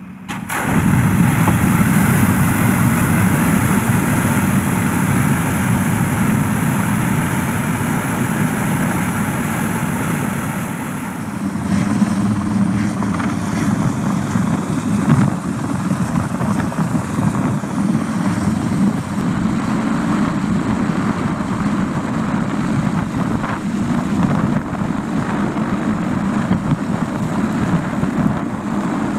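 Jet airliner turbines running with a steady high whine. About twelve seconds in this gives way to a rougher, lower helicopter rotor and turbine noise: a helicopter hovering low while it fills a water bucket slung on a longline.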